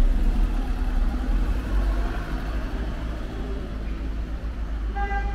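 A car driving past close by along a narrow street, its engine and tyre rumble loudest at the start and slowly fading as it moves off. A brief high tone sounds near the end.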